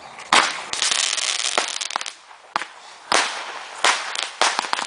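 A homemade firework made of about fifty roman candles bundled together, firing. It gives a hissing fizz broken by sharp pops, with several pops in quick succession near the end.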